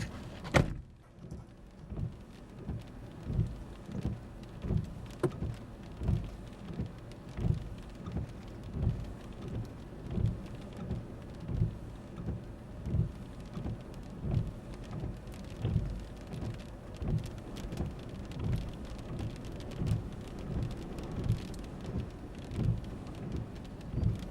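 Rain falling on a vehicle, with a regular low thump a little more than once a second. A sharp knock comes less than a second in, and the sound turns duller after it.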